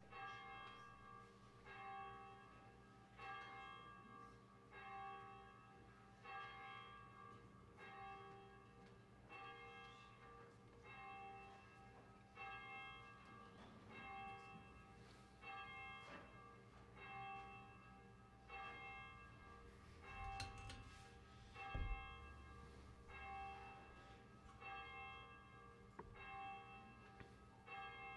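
Church bell tolling faintly, struck about every one and a half seconds, each stroke ringing with several overlapping tones and dying away before the next. A single dull thump about three-quarters of the way through.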